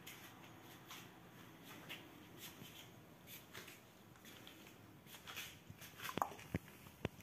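Faint light taps and rustles, with a few sharper clicks near the end: a kitten scampering on a laminate floor and knocking about a thin clear plastic lid.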